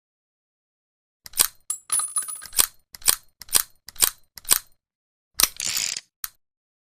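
Small revolver's action being worked: a quick cluster of metallic clicks with a light ring, then five single clicks about half a second apart, a short rattle and one more click.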